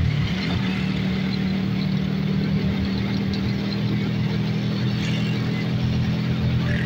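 Vehicle engine running at a steady speed while moving along a road, with road noise.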